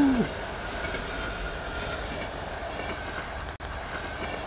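Passenger train of coaches passing close by, a steady rolling rumble of wheels on rail with a faint steady wheel hum. It cuts out for a moment about three and a half seconds in.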